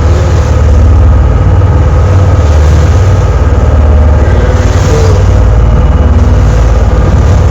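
Steady, loud low rumble aboard a moving tour boat: the vessel's engine running under way, with noise from the boat's motion through the air on the microphone.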